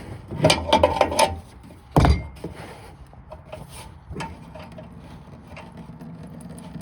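Clicks and knocks of a radiator drain valve being turned by hand and the drain pan being handled, the loudest knock about two seconds in, then a steady low noise from about four seconds in.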